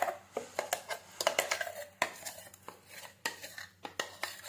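A spoon clinking and scraping against a grinder jar and pan in irregular clicks and knocks, as wet ground water chestnut paste is emptied into hot ghee.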